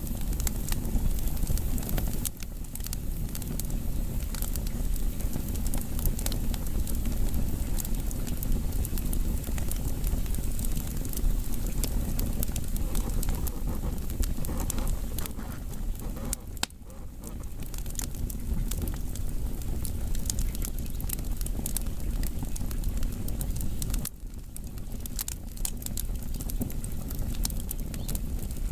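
Wood fire burning: a steady low rumble with many quick crackles and snaps from the burning logs, dipping suddenly in level a few times.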